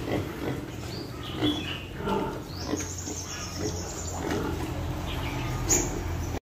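Piglets grunting, with a short high squeal about three seconds in. The sound cuts off suddenly near the end.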